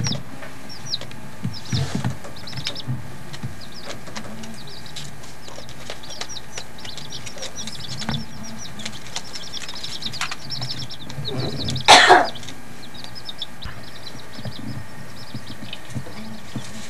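Young chicks peeping: many short, high chirps in quick runs. One loud, short noise breaks in about twelve seconds in.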